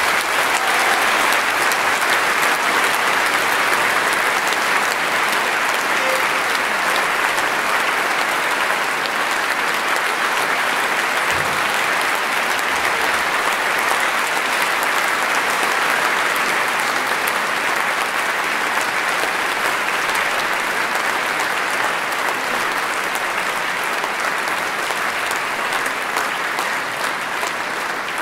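Large audience applauding, a dense, steady clapping that eases off slightly near the end.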